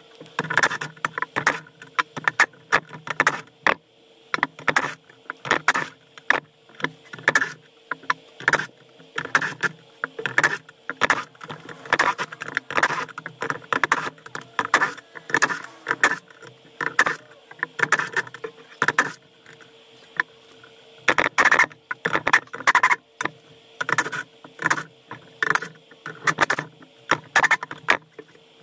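Cordless impact wrench run in short bursts to back out bolts from an outboard engine block, with metal parts clinking in between, over a faint steady hum.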